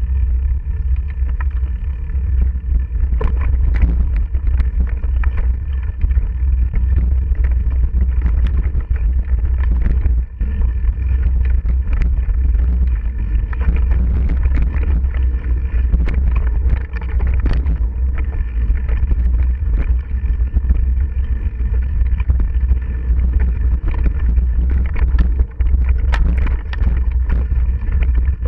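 Mountain bike ridden fast along a bumpy dirt forest singletrack, heard through a ride-along action camera: a constant low wind-and-motion rumble on the microphone, with frequent irregular clicks, rattles and knocks as the bike and camera jolt over the rough trail.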